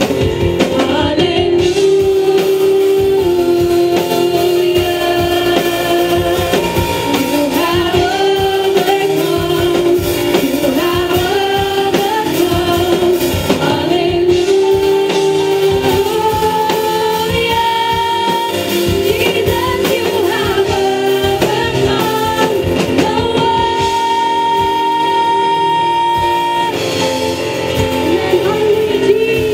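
Women's voices singing a worship song with acoustic guitar accompaniment, lines drawn out into long held notes.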